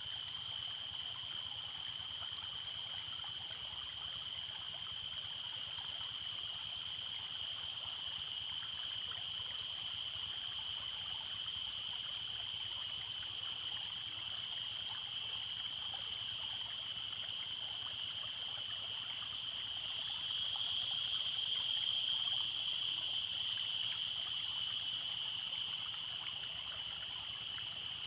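A steady, high-pitched insect chorus drones without a break over a faint trickle of flowing stream water. The drone swells louder about two-thirds of the way through, then eases back.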